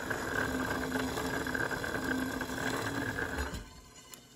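Electric motor of a workshop machine running with a steady whine, then shutting off about three and a half seconds in.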